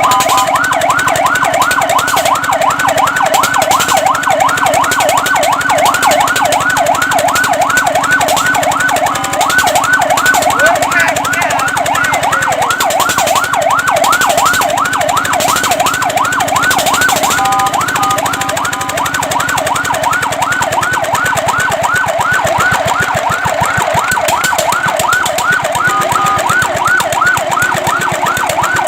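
Fire truck electronic siren in a fast yelp, its pitch sweeping up and down about four times a second. The pattern briefly changes to a steadier alternating tone a few times, about a third of the way in, just past the middle and near the end.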